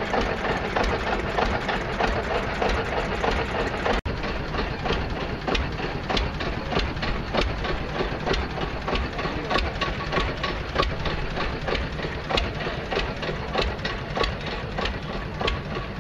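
Old tractor engine running steadily, with a regular knocking beat. The sound drops out for an instant about four seconds in.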